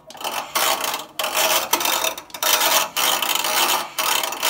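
Washing-machine drum turning with a rhythmic scraping rub that swells and fades about once a second: a stray wire caught between the drum and the outer tub dragging against the metal.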